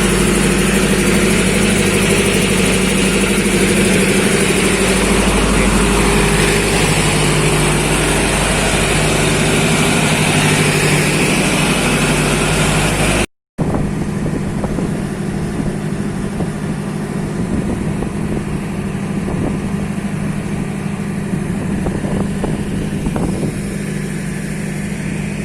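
Engines of water-pushing machines running steadily with a loud, even drone. A little over halfway through the sound cuts off abruptly, and a quieter, noisier engine sound with a few short knocks follows.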